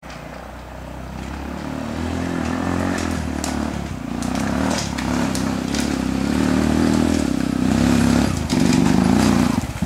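125 cc enduro motorcycle engine revving up and down in uneven bursts as the bike rides toward the microphone, growing steadily louder, with scattered sharp clicks and snaps.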